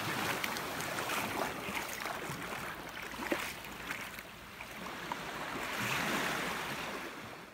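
Small waves washing into the shallows at the shoreline, a rushing hiss that swells and ebbs, loudest near the end before fading out.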